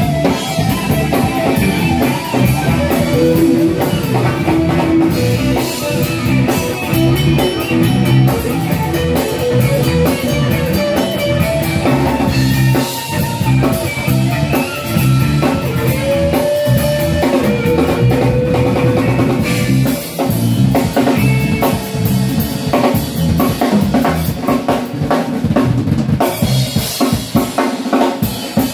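Live rock band playing loud: an Epiphone semi-hollow electric guitar plays lead lines over a drum kit with bass drum and rimshots. Near the end the drums stand out more on their own.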